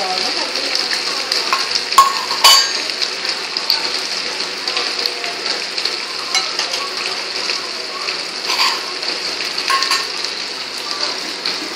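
Sliced onions frying in hot oil in a metal kadai, a steady sizzle, with two sharp clinks about two seconds in.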